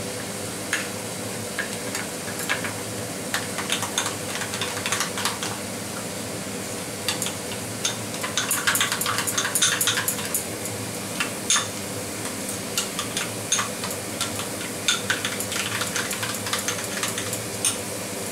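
A spoon repeatedly clinking and scraping against a ceramic bowl as yogurt is stirred together with ground spices, the clicks busiest about halfway through. Onion and garlic paste sizzles softly in oil in a frying pan, over a steady low hum.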